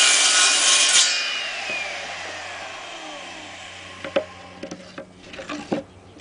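Circular saw finishing a cut through a wooden slat; about a second in the trigger is released and the blade spins down, its whine falling steadily in pitch and fading over the next two to three seconds. A few light knocks follow near the end.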